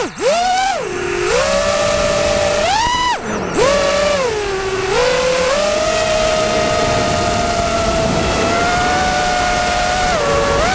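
FPV quadcopter's electric motors and propellers whining, heard from the GoPro on the drone itself. The pitch swoops down and up with the throttle as it lifts off, with a sharp climb about three seconds in, then settles into a fairly steady whine in flight.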